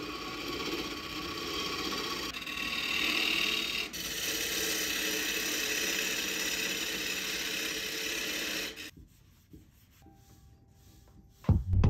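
Turning tool cutting a spinning wooden blank on a wood lathe: a steady scraping shave of wood, with a brief break about four seconds in. It stops abruptly about nine seconds in, leaving a faint hum, and music starts near the end.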